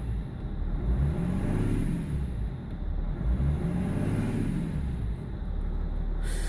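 BMW 330d's M57 straight-six diesel running unevenly, its revs swelling and sagging twice in a slow rhythm, a judder near 1500 rpm. It is the rough running that the owner puts down to failing injectors, cylinder 6 worst.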